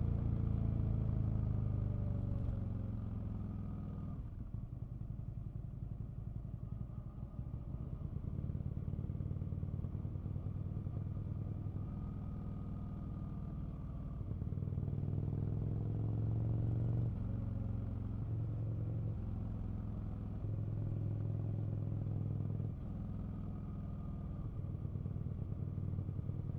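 Aprilia RSV Mille V-twin motorcycle engine heard from the rider's seat. Its revs fall over the first few seconds as the bike slows, then it runs at low revs, with the throttle opened and closed several times and one rise in revs about halfway through.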